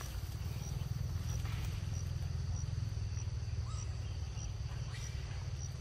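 A steady low rumble with an insect chirping in short high pips about one and a half times a second. A couple of faint crunches come from a young macaque biting into a green fruit.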